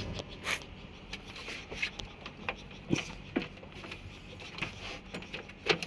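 Scattered light knocks and clicks, irregular and about half a second to a second apart, from someone moving about on the boat's wooden floor slats.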